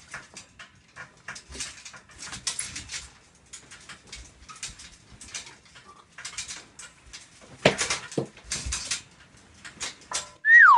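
Bedding and clothing rustling with bumps against the mattress and bed frame as someone thrashes, punches and kicks in bed, with a louder thump about three-quarters of the way through. Near the end, a wailing, wavering siren sound effect starts.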